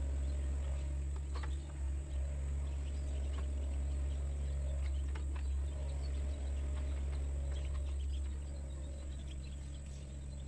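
Sunward mini excavator's diesel engine running steadily as a low hum, with scattered clicks and knocks, and the level easing off a little about eight seconds in. A thin, steady, high-pitched insect buzz runs over it.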